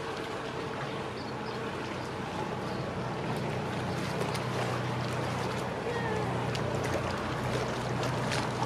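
Motor cruiser's engine running with a steady low hum over a background hiss, the hum growing a little stronger about halfway through as the boat comes closer.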